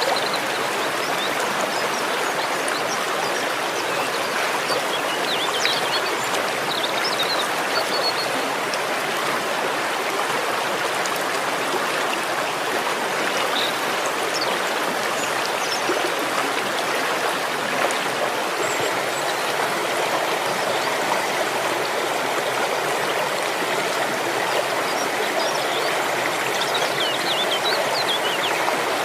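Waterfall: a steady, unbroken rush of falling and flowing water, with faint short high chirps now and then.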